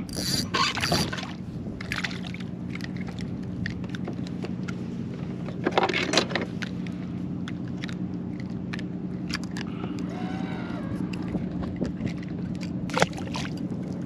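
Electric trolling motor on an Old Town AutoPilot kayak running with a steady hum, with scattered clicks, knocks and scrapes from handling a small mangrove snapper on the line.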